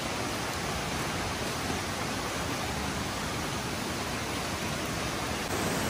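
Steady rush of a rocky jungle river running over boulders and rapids, an even wash of water noise with no distinct events; it gets slightly louder about five and a half seconds in.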